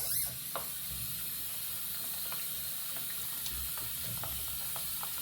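Water running steadily from a tap, turned on abruptly, with a few light clicks and knocks over the flow.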